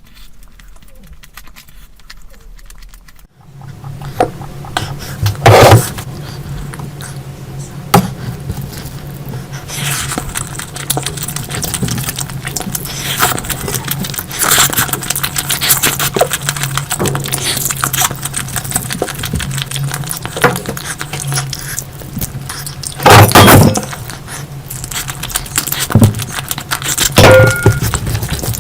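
Close-miked eating sounds: chewing and crunching, with scraping and sharp clicks from food being handled, over a steady low hum. It starts abruptly about three seconds in, with several loud crunching bursts.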